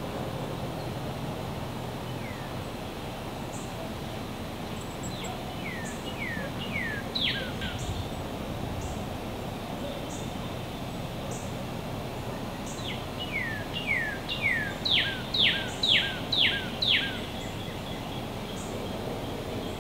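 A songbird singing: two runs of clear whistled notes, each note sliding downward in pitch, the notes coming faster and louder as each run goes on; the second run, near the end, is longer and louder. A steady outdoor hiss lies underneath, with faint high ticks.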